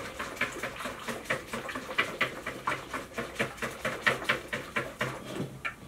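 Wire balloon whisk beating milk and caster sugar in a plastic mixing bowl, its wires clicking against the bowl in a quick, even rhythm of about four strokes a second, whisking until the sugar dissolves.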